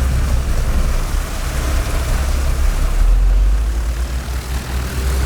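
Heavy road-paving machinery, an asphalt paver with a dump truck feeding it, running steadily with a deep engine drone, which swells a little about three seconds in.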